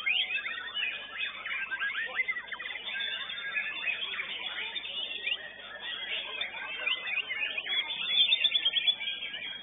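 White-rumped shamas (murai batu) singing in competition: many rapid whistles, trills and chirps overlapping in a dense chorus, a little louder near the end.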